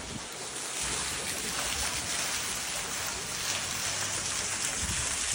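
Heavy rain falling steadily, with a few low rumbles near the end.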